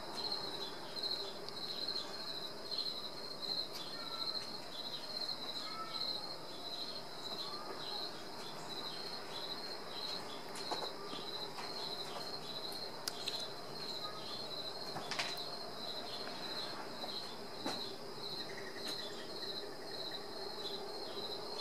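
A cricket chirping steadily, about two high chirps a second, with a few light clicks and knocks here and there.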